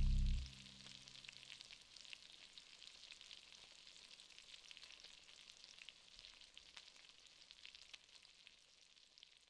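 A low, sustained drone of steady tones cuts off about half a second in, leaving a faint, steady crackling and fizzing hiss of many tiny clicks that slowly fades out.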